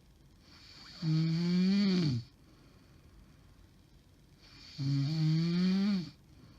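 A woman snoring in her sleep: two long, loud, droning snores about four seconds apart. Each begins with a hiss, creeps up in pitch, then drops as it ends. The uploader takes her snoring as a sign of sleep apnea.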